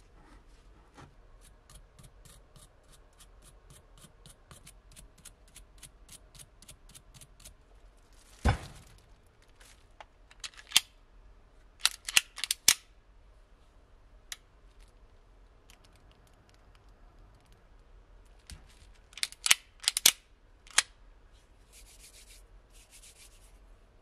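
Bench handling sounds as brown clay in a plastic bag is cut with a razor scraper. A run of light, even ticks comes first, about four a second, then a single loud knock, then scattered clusters of sharp clicks and two short rustles near the end.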